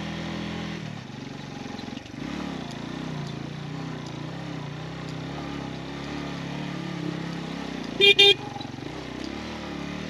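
Motorcycle engine running under way, its pitch wavering up and down with the throttle on a rough track. About eight seconds in the horn gives two short beeps, the loudest sound.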